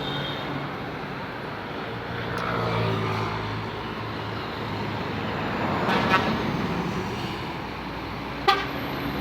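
Roadside traffic with a vehicle's engine passing, louder about two to three seconds in. Two short horn toots cut through, one about six seconds in and a sharper one near the end.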